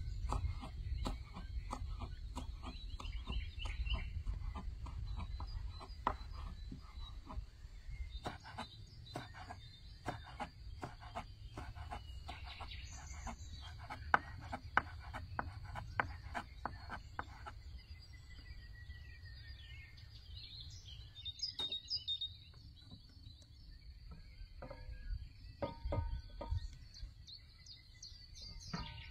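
Outdoor ambience: a steady high-pitched hum with occasional bird chirps over a low rumble, broken by a run of short sharp knocks, about two a second, that stops a little past halfway.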